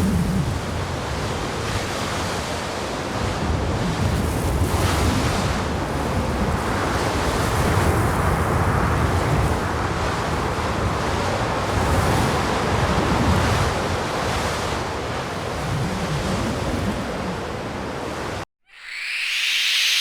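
Sound-effect ambience of steady rushing noise that swells and eases slowly, then cuts off suddenly near the end. After a short silence a brief high hiss swells up.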